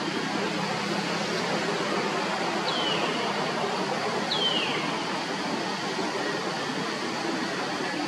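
Steady outdoor hiss with two short, high calls that fall in pitch, about a second and a half apart, near the middle.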